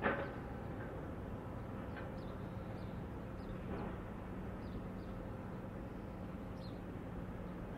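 Steady low hum and rumble of a large ship's engines, with faint short high bird chirps now and then and a brief sharp knock right at the start.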